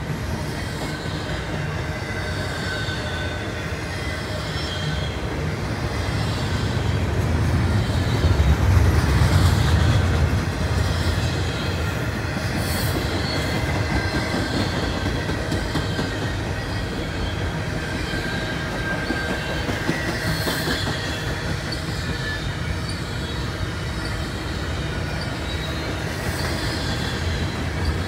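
Double-stack intermodal freight train rolling past: a steady rumble of steel wheels on rail, loudest about eight to ten seconds in, with faint high wheel squeal running through it.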